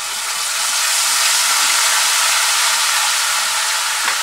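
Ginger-garlic paste sizzling loudly in hot oil as it is stirred with a wooden spatula. The sizzle swells over the first second, then holds steady.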